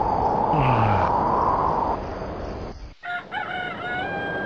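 A loud, steady rushing sound cuts off abruptly, and about three seconds in a rooster crows once.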